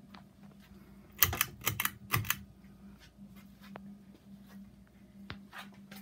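Hampton Bay ceiling fan running with a faint steady hum. About a second in there is a quick run of sharp clicks, with scattered lighter ticks after it.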